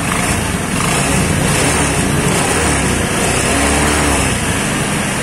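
Honda Scoopy carburetted scooter's single-cylinder engine and CVT running steadily, a little louder through the middle. Smooth, without the rough CVT noise that a worn roller-housing bushing had caused, which has now been replaced.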